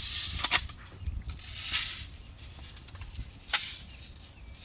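CO2-powered BB gun firing: a quick pair of sharp pops about half a second in and a single pop about three and a half seconds in, with short rushes of hiss between them.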